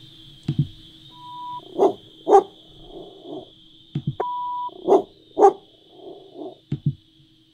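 Recorded dog barks played back one file after another: a short beep and then two barks, and about three seconds later another beep and two more barks, over a steady high whine. Short clicks fall in between.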